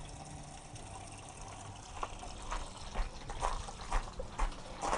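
Tap water running into a stainless outdoor dishwashing sink as dishes are washed. From about two seconds in there is a regular clicking about twice a second.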